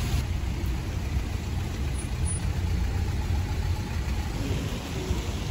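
Steady low rumble of outdoor background noise with a hiss above it and no distinct events.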